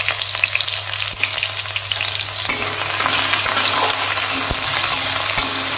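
Chopped tomato and curry leaves sizzling and crackling in hot oil in a metal kadai, growing louder about halfway through. A steel spatula clicks and scrapes against the pan as it is stirred.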